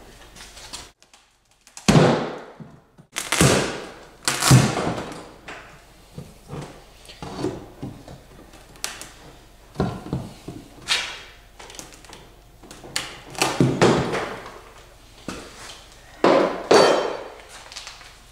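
Wooden boards of an old paddle boat being pried and knocked loose: a series of separate knocks and thuds a second or few apart as corroded screws break and floor boards come free.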